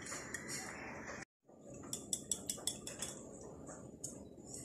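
Wire whisk beating eggs in a glass bowl, its metal wires clicking against the glass in quick strokes over the wet slosh of the eggs. The sound breaks off for a moment about a second in, then comes back as a fast run of about six clicks a second.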